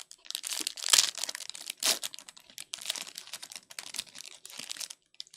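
Foil wrapper of a 2022 Panini Prestige Football hobby pack crinkling and tearing as it is ripped open, with the loudest crackles about one and two seconds in.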